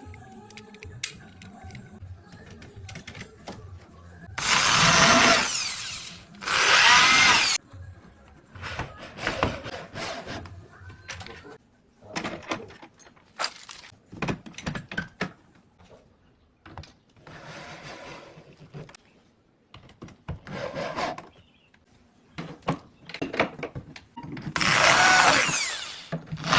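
A power tool working wood in repeated bursts, running loud for a second or two at a time, with shorter runs and pauses between them.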